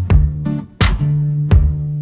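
Instrumental break in a Delta blues song: guitar notes ringing over a heavy beat struck three times, about every 0.7 seconds, with no singing.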